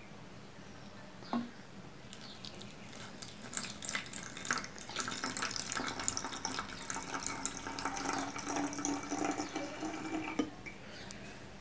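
Water poured from a clear plastic jug into a plastic spray bottle, trickling and splashing inside the bottle. There is a light knock about a second in; the pour grows fuller about three seconds in and stops shortly before the end.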